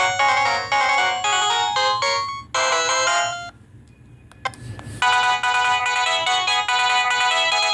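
Ringtones of an LG SD2130 mobile phone: a quick electronic melody plays and stops about three and a half seconds in, a click follows, and a different ringtone with held, chord-like notes starts about a second and a half later.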